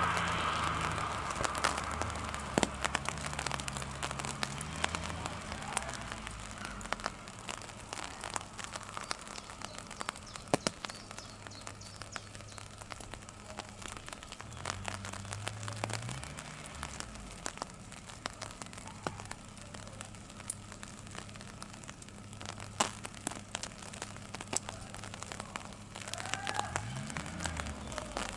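Raindrops tapping irregularly on an umbrella, under a low droning hum that rises and falls in pitch three times.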